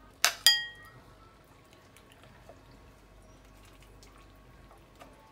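A stainless-steel ladle clinks twice with a short metallic ring, then fish broth runs and drips faintly from the ladle into a bowl.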